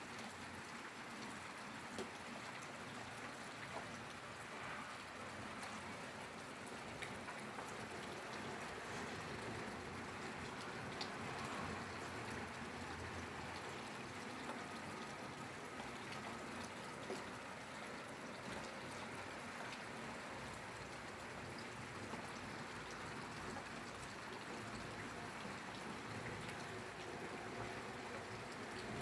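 Steady rainfall, a continuous hiss of rain with many small drops pattering on a surface.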